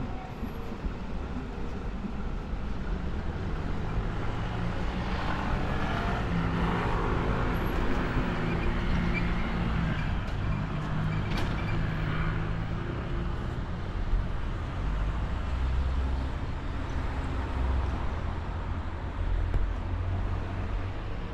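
A motor vehicle passing close by, its noise swelling from about four seconds in and fading after about thirteen seconds, over a steady low engine hum.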